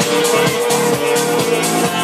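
Dance music with a steady beat played by a DJ through a PA speaker.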